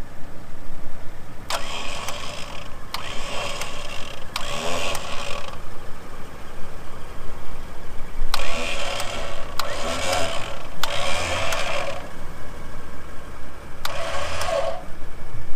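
Kings electric winch on a bogged 4x4 pulling it out of mud, switched on in seven short bursts of about a second each, in groups of three, three and one, each starting with a sharp click. A vehicle engine idles underneath.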